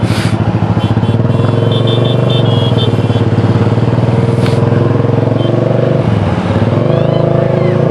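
Motorcycle engine running steadily at low speed, heard from the rider's seat in slow traffic.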